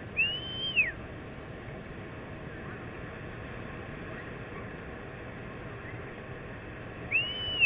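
Steady rush of breaking surf and wind, with two loud whistles that rise and fall, one just after the start and one near the end.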